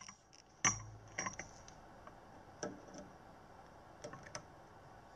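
Multimeter test probe tips clicking and tapping on solder pads during a diode check of a bridge rectifier: about five light clicks, the loudest about a second in with a short low thump.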